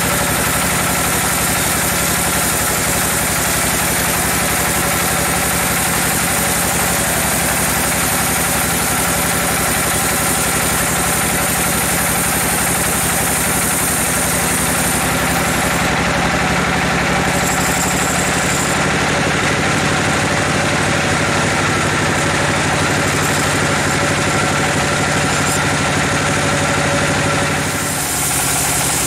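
Band sawmill running steadily, its blade sawing through a giant teak log: a constant machine drone under the hiss of the cut, dipping briefly near the end.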